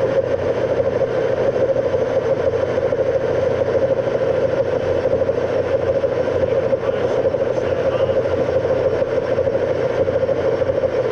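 Engine lathe running steadily with a constant hum while the carriage travels on power feed, turning down the workpiece.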